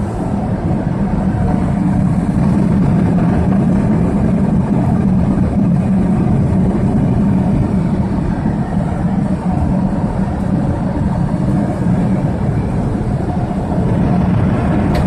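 Steady airliner cabin noise in cruise: engine and airflow noise heard from inside the cabin, an even, unbroken sound strongest in the low range.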